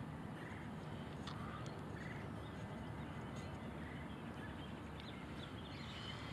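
Quiet outdoor ambience on open water, with faint, short bird calls every second or so.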